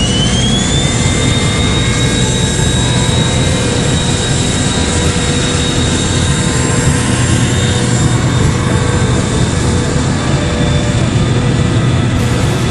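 Aircraft jet turbine running: a loud, steady rush with a high whine that climbs in pitch for about the first second as it spools up, then holds steady.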